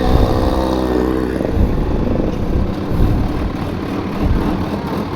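Motorcycle engine running while riding, rising in pitch in the first second or so as it revs, then dropping back to a steady drone.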